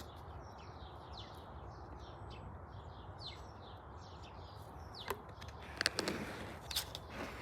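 Small birds chirping in the background, a steady run of short high calls over a faint hiss. A few sharp clicks or rustles come about five to seven seconds in.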